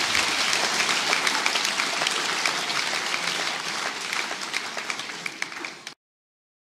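Theatre audience applauding, dense clapping that slowly thins and is cut off abruptly near the end.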